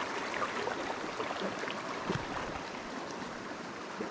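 Shallow, rocky mountain stream running steadily over stones, with a few faint clicks and small splashes.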